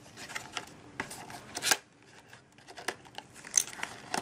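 Cardboard box being opened by hand: flaps and an inner cardboard tray rubbing and scraping, with sharp taps and snaps, the loudest about a second and a half in.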